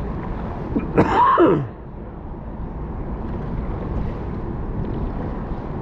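A short wordless vocal sound about a second in, falling in pitch, over a steady low rumble.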